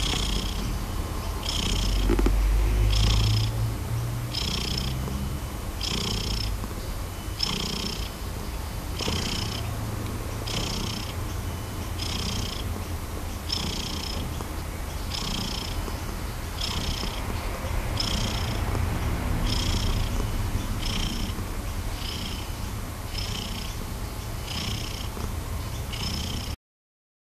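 Long-haired calico cat purring steadily and close up, with a soft breathy rasp repeating about once a second.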